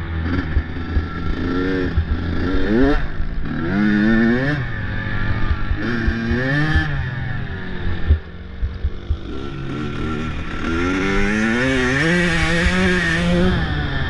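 A motor vehicle engine revving up and down over and over, its pitch rising and falling every second or two, over a heavy low rumble.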